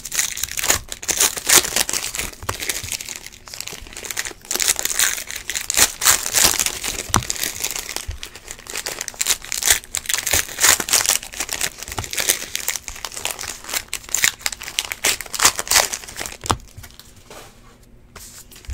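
Trading card pack wrapper crinkling and rustling in the hands as it is torn open and handled, in a busy run of quick crackles that dies down near the end.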